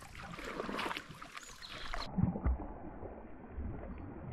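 Kayak paddling: paddle blades dipping and splashing in the river, with water moving along the hull and occasional knocks.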